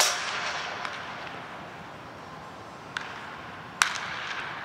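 Baseball bats striking pitched balls in batting practice: a sharp crack at the start, fainter ones about a second and three seconds in, and another loud crack near the end, each ringing on in the echo of an indoor dome.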